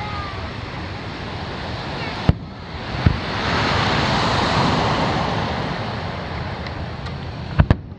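Aerial fireworks shells bursting with sharp booms: one a little after two seconds, another about a second later, then two in quick succession near the end. Underneath runs a steady rush of surf and wind noise, which swells for a few seconds in the middle.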